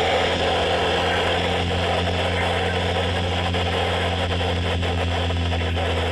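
Weather radio receiver hissing with static, the sound of a weak or dead broadcast signal, over a steady electrical hum.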